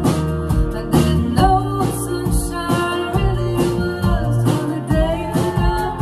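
A live band playing a song: acoustic guitars strummed over bass and a steady drum beat, with women singing.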